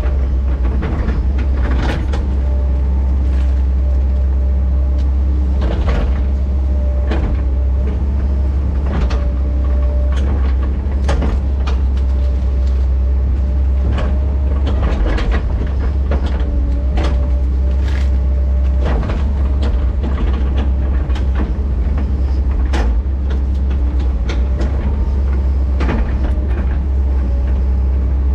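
Diesel engine of an excavator running steadily under load, with frequent clanks and knocks of metal against wood and steel as it handles logs and brush, and an on-and-off hydraulic whine.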